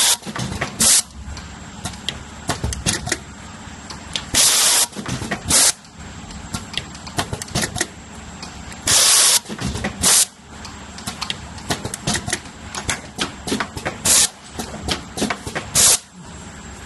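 Automatic USB A female connector soldering machine cycling: pneumatic cylinders vent air in sharp hisses, a longer burst followed by a shorter one, repeating about every four to five seconds. Between them the mechanism clicks and clacks steadily over a low machine hum.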